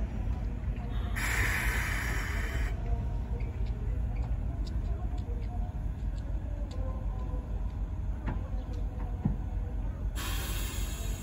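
D51-class 2-8-2 steam locomotive letting off two sharp bursts of hissing, one about a second in lasting about a second and a half and another near the end, over a steady low rumble.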